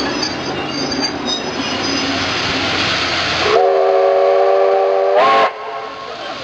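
A train running by with steady rolling wheel noise and a faint high wheel squeal. About three and a half seconds in, a locomotive's horn or whistle sounds a chord of several notes for about two seconds, steps up in pitch and cuts off.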